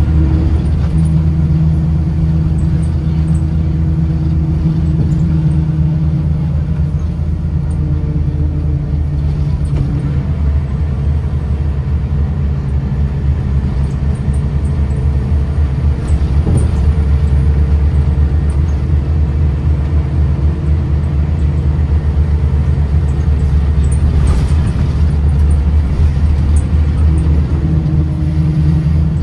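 Scania L94UB bus's nine-litre five-cylinder diesel engine and ZF ecomat automatic gearbox heard from inside the cabin while driving: a loud, low, steady drone whose note changes several times as the bus speeds up and the gearbox shifts.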